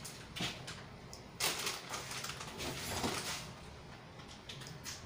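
Seafood and sauce sizzling in a wok over a gas flame, with louder noisy bursts about a second and a half in and again near three seconds.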